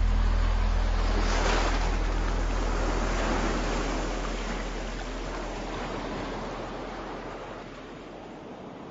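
Ending of the song: a last low bass note rings out and slowly dies away under a rushing, surf-like wash that swells twice and fades with it.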